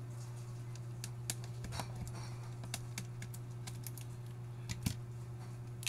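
Irregular light clicks and taps of plastic and a screwdriver as a laptop battery is freed and lifted out of its bay, over a steady low hum.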